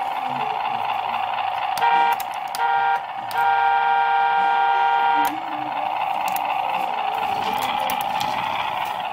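Hasbro Ultimate Bumblebee toy car's electronic sound effects from its small built-in speaker: a steady engine hum with a car horn honking twice briefly about two seconds in, then once long for nearly two seconds.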